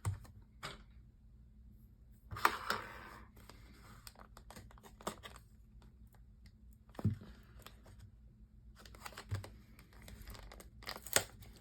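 Packaging of a boxed speed cube being handled and opened by hand: scattered short rustles and scrapes, the longest about two and a half seconds in, with quiet gaps between them.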